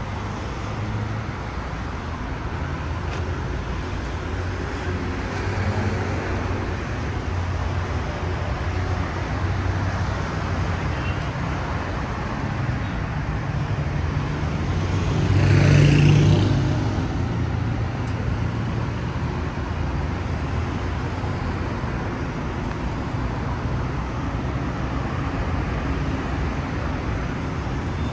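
City road traffic: a steady rumble of car engines and tyres, with one vehicle passing close about halfway through, swelling and then fading.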